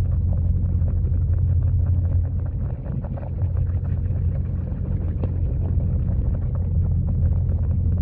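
Waterfall pouring into a koi pond, heard underwater: a steady low rumble with a constant crackle of small ticks.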